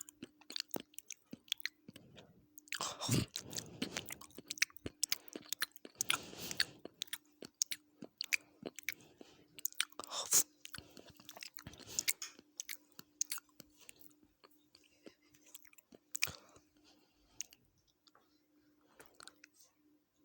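Close-miked chewing of a chicken biryani meal: wet mouth clicks and smacks, with louder bursts of chewing every few seconds that thin out near the end. A steady faint hum runs underneath.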